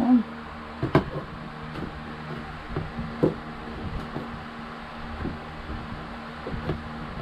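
Hands working the wing nuts off the back of an RV shower faucet inside the wall cavity: scattered knocks and clicks of handling, the sharpest about a second in, over a steady low hum.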